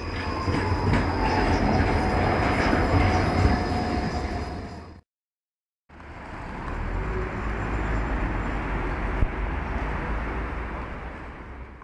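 A tram passing on a city street: rumbling with a whine that falls in pitch. About five seconds in the sound cuts off to silence, and after about a second a stretch of steady street rumble follows and fades out.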